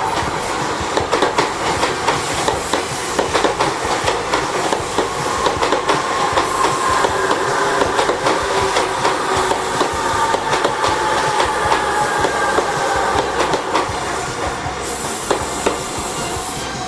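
Tobu 100 series Spacia electric train passing, its wheels clacking rapidly over rail joints, with a faint whine that falls slowly in pitch midway.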